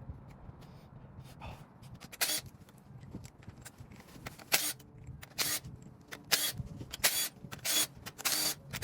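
Scattered knocks and clinks of metal parts and tools being handled and shifted on a cluttered workbench, coming more often in the second half.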